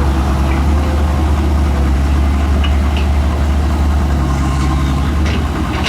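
Heavy diesel engine running steadily with a deep, even hum, with a few faint clicks about halfway through and near the end.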